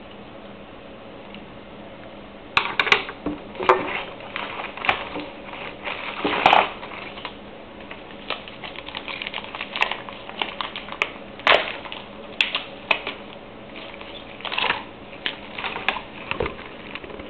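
Irregular small clicks and clatters of hard objects being handled, starting about two and a half seconds in. The loudest cluster comes around six and a half seconds in.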